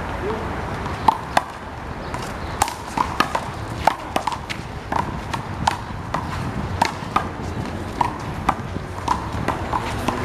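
Small rubber handball being smacked by hand against a wall and bouncing on the court in a fast rally: sharp, irregular smacks at about two a second, many with a short ring.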